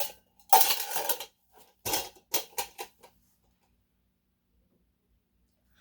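Small plastic fidget toys clattering and knocking as they are handled and moved, a quick run of sharp knocks over the first three seconds, then silence.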